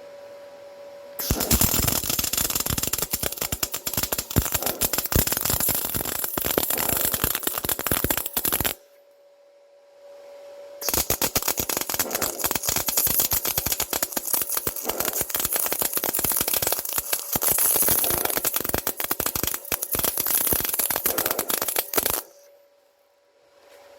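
Arc welding of steel parts: two long runs of crackling and sputtering from the welding arc, the second starting about two seconds after the first stops. A faint steady hum sounds in the pause between them.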